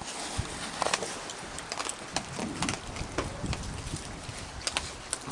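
Raccoons feeding, making irregular clicks and taps, over a steady hiss of rain.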